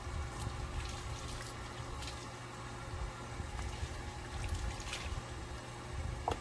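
Water from a garden hose running and splashing onto a wet dog's coat and the pavement during a bath, with a few brief sharper splashes. A steady low rumble sits underneath.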